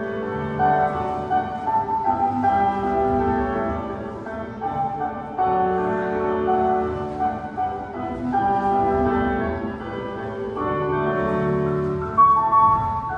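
Classical instrumental music accompanying a ballet class exercise: a melody over several held notes, changing every second or so.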